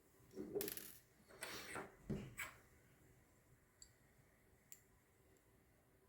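Small hard parts of a hair trimmer being handled during disassembly: three short scraping clatters in the first two and a half seconds, then two faint clicks.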